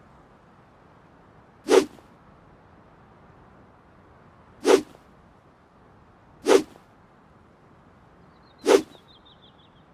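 Handmade longsword swung through the air four times, each swing a short, sharp whoosh, spaced irregularly a couple of seconds apart.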